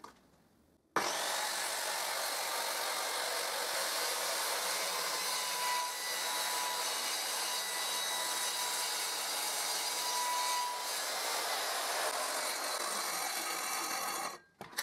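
Handheld circular saw running and cutting through a wooden board. The sound starts abruptly about a second in, holds steady, and stops shortly before the end.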